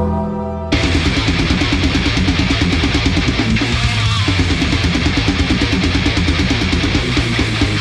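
Solar A2.6TBR electric guitar played heavy-metal style: a held chord rings out, then just under a second in it breaks into a fast, even chugging riff.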